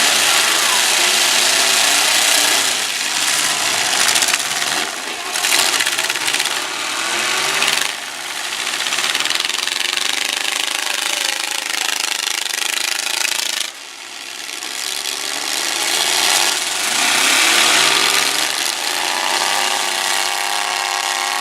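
Several unmuffled demolition-derby truck engines running hard at once, their pitch rising and falling as they rev, with a brief dip about two-thirds through.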